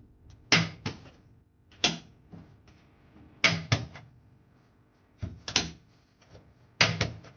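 A string of sharp mechanical clunks and clicks of metal parts being worked by hand, several coming in quick pairs, about a second or two apart.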